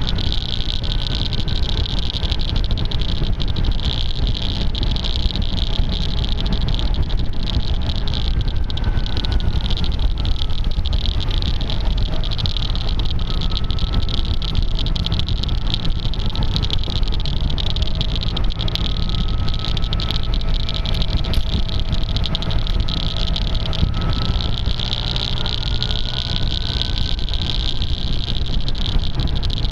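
Wind rushing over a bike-mounted camera's taped microphone at road speed, with a steady clicking from the tape. Underneath, the maxi-scooter's engine note rises and falls gently with speed.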